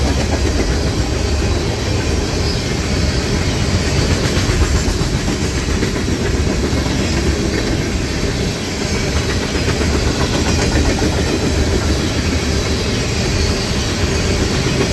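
Freight train cars rolling past close by, a steady loud rumble and clatter of steel wheels on the rails.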